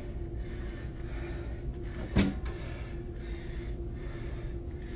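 A single sharp knock about two seconds in, over a steady low hum.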